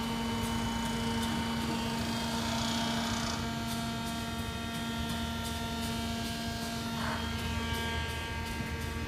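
Steady electrical hum with several thin, level whining tones from the powered-up control cabinet of a Southwestern Industries CNC vertical mill, where the axis servo drives and the spindle drive sit.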